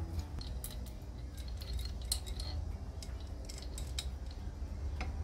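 Light metallic clicks and clinks as a Yamaha XJ750's camshafts and cam chain are handled and set onto the cylinder head, coming irregularly throughout.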